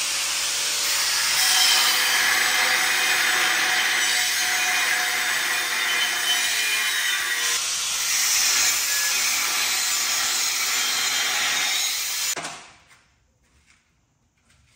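A power tool running, a loud, steady rasping hiss that cuts off abruptly after about twelve seconds.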